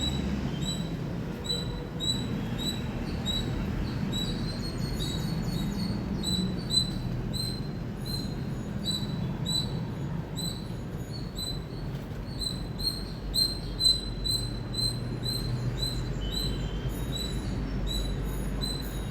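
Indian palm squirrel chirping: a long, steady series of short, high chirps, about two or three a second. The chirps crowd together and overlap in the middle and near the end. A low background rumble runs underneath.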